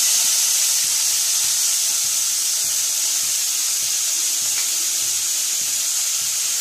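Cauliflower florets and onion-flower stalks sizzling in hot oil in a kadai, just added to the pan. A loud, steady frying hiss that eases off only slightly.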